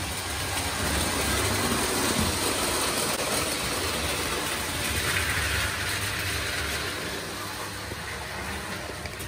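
Postwar Lionel O-gauge trains running on a layout: a steady rumble of metal wheels on three-rail track over a low motor hum, swelling a little early and fading toward the end.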